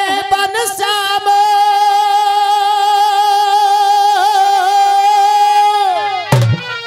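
A singer holding one long, high note in a rasiya folk song after a few quick melodic turns, the note wavering briefly midway and falling away near the end. A single thump near the end.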